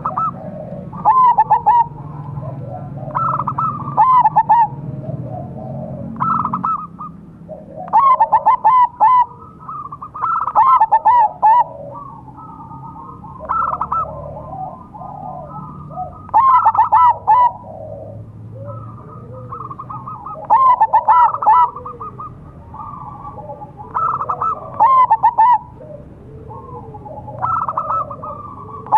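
Zebra dove (perkutut) cooing: its song of quick, stuttering coos comes in loud phrases about a second long, repeated every two to three seconds, with softer coos in between.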